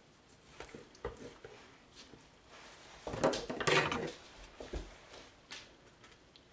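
Hands tying off kitchen string around a raw chicken: light knocks, rustles and scrapes of handling, loudest about three to four seconds in.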